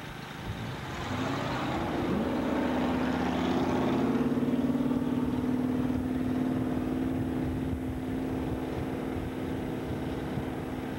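Drag-racing vehicle's engine at full throttle: its pitch climbs twice in the first two seconds, then holds a steady drone, loudest about four seconds in, that slowly fades.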